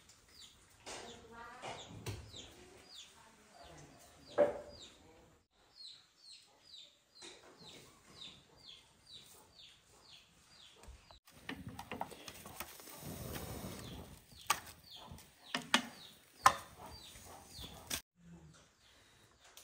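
Chickens calling, a run of short high cheeps that fall in pitch, about two or three a second. There is a sharp knock about four seconds in and a few more clicks near the end.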